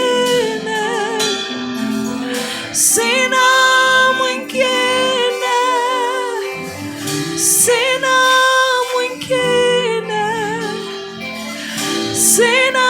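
Worship music: a woman singing long held notes with vibrato, breaking for short breaths, over sustained instrumental chords.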